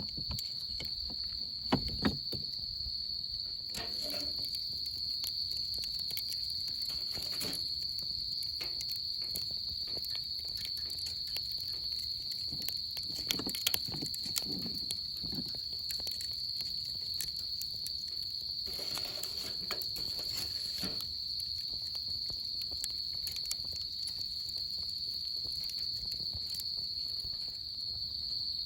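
Autumn crickets trilling in one steady, unbroken high-pitched chorus, with scattered faint clicks and a few brief rustles.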